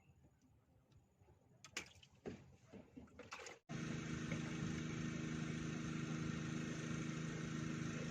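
A few faint clicks and handling rustles, then after a sudden cut a small engine running steadily with an even hum.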